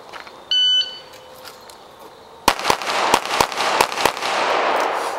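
A shot timer gives one short electronic start beep. About two seconds later a handgun fires about six shots in quick succession within a second and a half, drawn from the holster against the clock. A rush of noise follows and fades.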